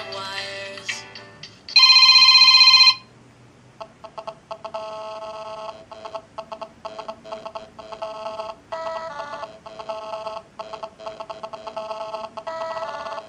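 BQ Aquaris E4.5 smartphone's speaker playing its built-in ringtones one after another. A melodic tune ends, a very loud steady electronic tone sounds for about a second, and after a short pause a new ringtone of quick, rhythmic repeated notes begins.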